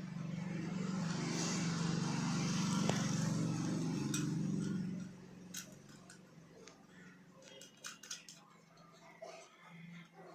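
A steady low mechanical drone, like a motor or engine running, that cuts off sharply about five seconds in, followed by a few light clicks and taps.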